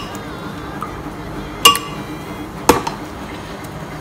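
A spoon knocks against a glass blender jar twice, about a second apart, each a sharp clink with a short ring. It is knocked as spoonfuls of thick yogurt go into the jar.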